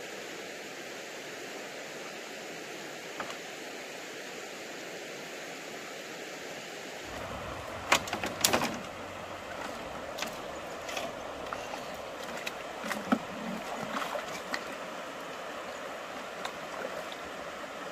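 Steady rush of a flowing stream. About seven seconds in it grows fuller, and a run of irregular knocks and splashes follows, the loudest a cluster near the middle, as things are handled at the water.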